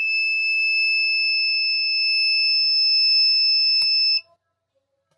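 Buzzer of a homemade Arduino carbon-monoxide alarm sounding one continuous high-pitched tone, cutting off suddenly about four seconds in.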